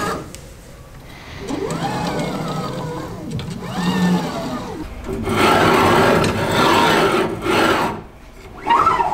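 Laser cutter motion axes, the gantry and laser head, pushed back and forth by hand along their rails. Each push gives a mechanical whir whose pitch rises and falls. A rougher, louder rolling stretch comes in the middle.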